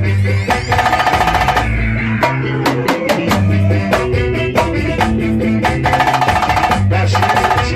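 Band playing an instrumental pagode groove, with drums, bass and a fast repeated high riff over it.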